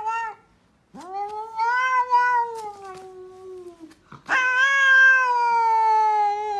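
Domestic cat yowling: two long, drawn-out calls of about three seconds each, the pitch slowly falling through each, after a short meow at the start.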